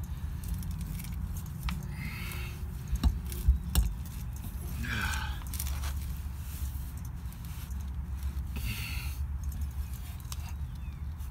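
A copper pipe being handled and worked into a fitting: a few light clicks and knocks between one and four seconds in, and some soft scraping, over a steady low rumble.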